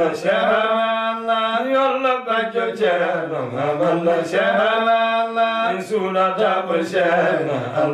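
Two men chanting an Islamic devotional qasida together, unaccompanied, in long melodic lines whose pitch sinks at the close of each phrase about every four seconds.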